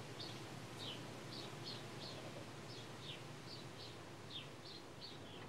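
A small bird chirping steadily, short falling chirps about three a second, faint over a low background hum.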